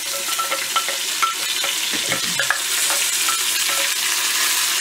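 Meat pieces sizzling in hot oil in an enamel pot. Over it, a wooden spoon taps and scrapes again and again as green purée is scraped from a blender jug into the pot, some taps ringing briefly.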